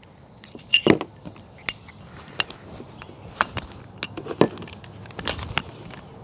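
Small hunting gear, such as flashlights, being handled and packed back into a fleece backpack: a string of scattered clicks, clinks and knocks.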